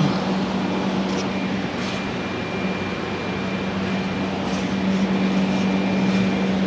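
A steady machine hum: a constant low drone over an even rushing noise, unchanged throughout.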